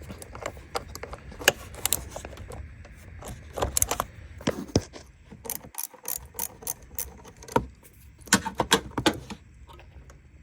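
Socket ratchet with a 10 mm socket clicking in short, irregular runs as a fastener is worked loose, with scattered sharp clicks of tool and metal parts.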